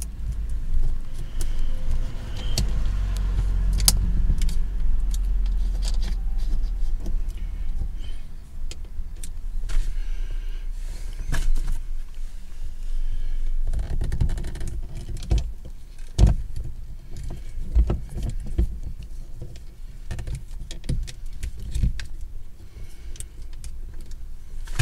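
Clicks, knocks and light rattles of an action camera and its plastic and metal mount parts being handled, clipped onto a magnetic quick-release mount and turned on a windscreen suction-cup mount. A low rumble runs underneath, heaviest in the first third, and the sharpest knock comes a little past halfway.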